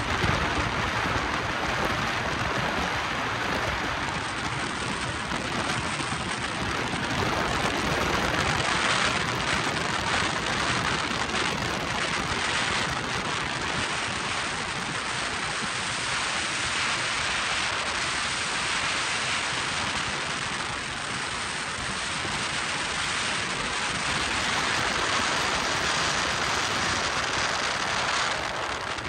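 Wind and water rushing past a speed boat at high speed, heard from the open cockpit as a steady, loud hiss with wind buffeting the microphone; the boat's engines run underneath it.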